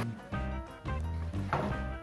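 Background music with a bass line and a steady rhythm.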